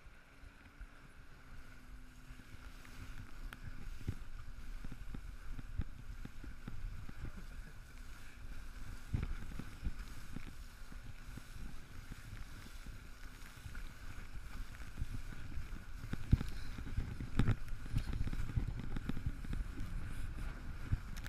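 Towable inflatable ring skimming over a jet ski's wake: a steady rush of water and wind, with a faint steady engine hum in the first half. Low thumps come more often in the last few seconds as the ring bounces over the waves.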